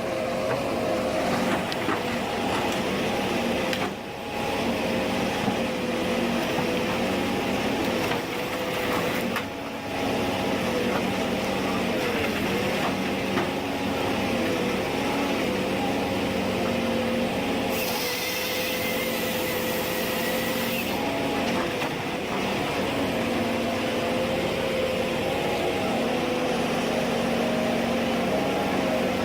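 Ponsse Ergo forestry harvester's diesel engine running under load, its pitch drifting up and down as the machine works. A hiss is layered over it for about three seconds past the middle.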